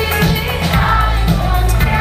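Pop-rock band playing live, with a woman singing over electric guitars, bass and drums, heard from the audience.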